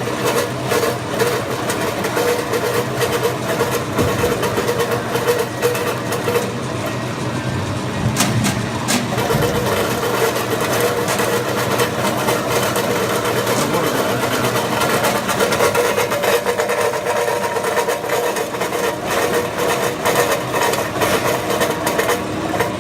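ALP-100 industrial vegetable dicing machine running, a steady motor hum under a dense, rapid clatter from the cutting mechanism.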